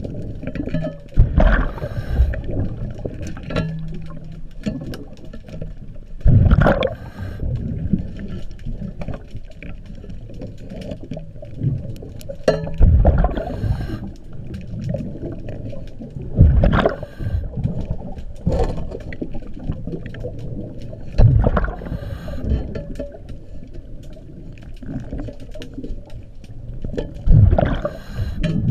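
Scuba diver's regulator breathing underwater: a rush of exhaled bubbles every five to seven seconds, with a steady low underwater rumble between breaths.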